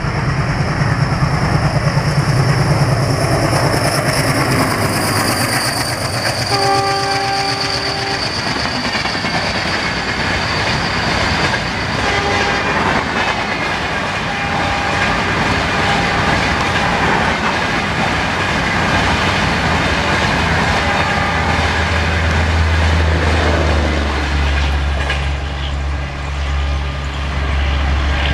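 Diesel-hauled express with LHB coaches passing at speed. A high whine falls in pitch as the locomotive approaches, and it sounds a horn blast of about a second and a half some six seconds in. Then comes the steady rush and clickety-clack of the coaches, with a few short faint horn notes, and a deep steady hum rises near the end as the rear power car passes.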